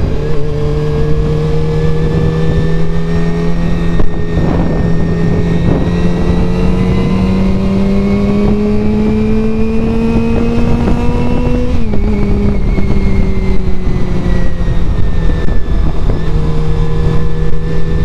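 Honda CBR400RR's inline-four engine pulling under acceleration, its pitch rising steadily for several seconds, then dropping sharply at a gear change about twelve seconds in and holding steady. Wind rush on the helmet-mounted microphone sits under it throughout.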